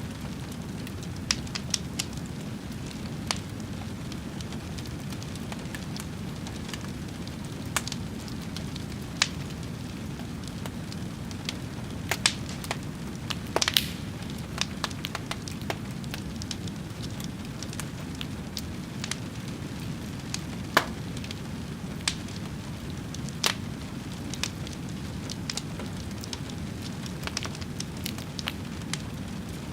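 Wood fire burning with a steady low rumble and irregular sharp crackles and pops, a few louder ones in a brief flurry about halfway through.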